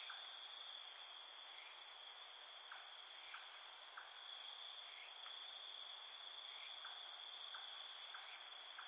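Insect chorus ambience: a steady high-pitched trilling, with short chirps about once a second.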